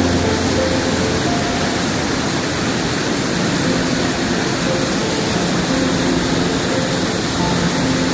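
Tall waterfall and its white-water stream rushing steadily and loudly, an even roar of falling water and spray.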